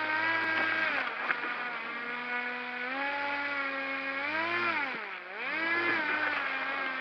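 Small homemade airboat's motor and propeller running with a steady whine. The pitch drops about a second in, rises again near three seconds, then dips sharply about five seconds in and climbs back as the throttle changes.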